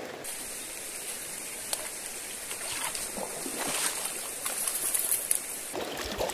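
Shallow river water running over stones, with small splashes close by as a caught fish is let go in the water.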